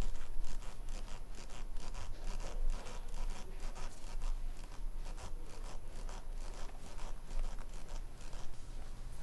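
Rapid, steady scratchy rubbing or scraping strokes, about five a second.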